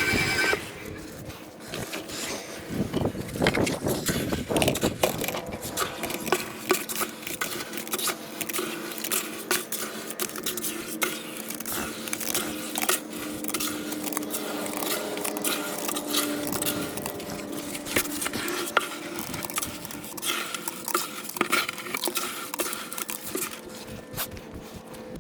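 Repeated clinking and scraping of metal hand tools, with a faint steady hum underneath.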